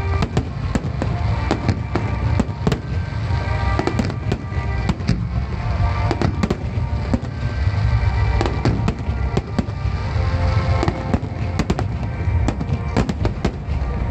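Fireworks finale barrage: aerial shells bursting in quick succession, many sharp bangs over a continuous low rumble, with music playing underneath.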